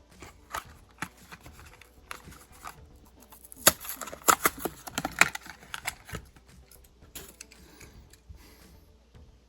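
Plastic and cardboard packaging of a Matchbox diecast car being handled and opened: irregular crackling and clicking, with a dense loud burst of crackles in the middle.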